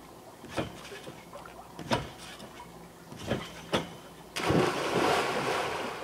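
A person bouncing on a backyard trampoline, a sharp thump on each landing about every second and a half, two close together for the takeoff, then a big splash about four seconds in as the body hits the water of an above-ground pool, the water sloshing and fading after.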